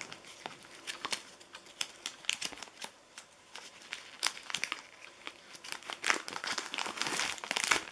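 Plastic zip-lock freezer bags crinkling as they are pulled out of a cardboard box, with the box rustling in the hands: an irregular run of crackles, busiest in the second half.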